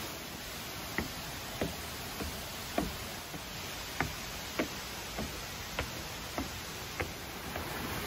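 Footsteps on wooden stairs, an even climbing pace of about one step every 0.6 seconds, each a short knock, over a steady hiss.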